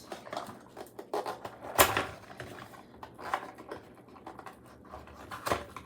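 Small packaging and plastic accessories being handled and opened: a run of scattered clicks and taps, the loudest about two seconds in and another near the end.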